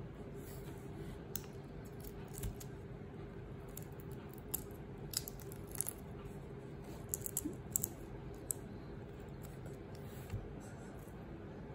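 Faint, scattered clicks and crackles of shrimp shells being peeled off, bunched in the middle of the stretch, over a steady low hum.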